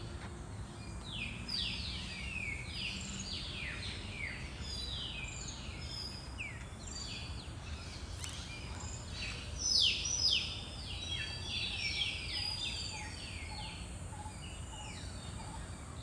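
Many birds calling in the trees: a busy chorus of short chirps that fall in pitch, loudest about ten seconds in, over a low steady rumble.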